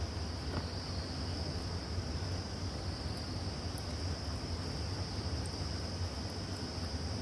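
Crickets chirring steadily in a continuous high band, over a low steady hum.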